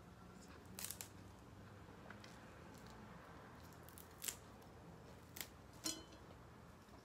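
Eating sounds: a few short, sharp crunches and clicks from biting into food, the loudest about four seconds in, over a faint steady background.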